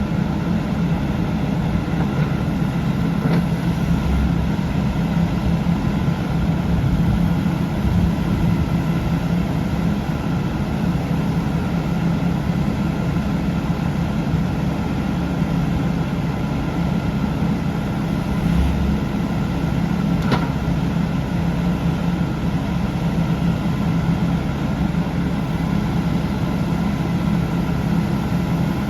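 Diesel engine of a Kubota KX080-3a 8-tonne excavator running steadily at a constant speed, with a couple of faint clicks.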